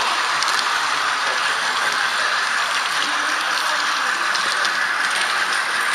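H0 model train running along the layout track with the camera on board: a steady whirring rolling noise, with a few faint clicks.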